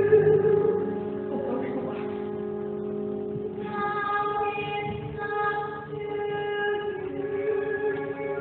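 Musical-theatre song from a live stage performance: a woman singing long held notes with vibrato over instrumental accompaniment.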